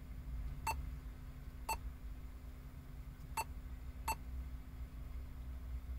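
Four short touch-key beeps from a Boss double-DIN touchscreen car stereo as its on-screen menu buttons are tapped. The beeps come singly at irregular spacing, two close together near the start and two more past the middle.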